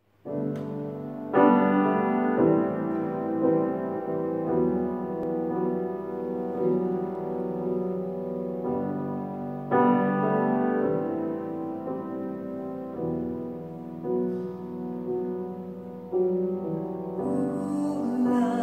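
Grand piano played alone, slow chords struck every few seconds and left to ring as they fade.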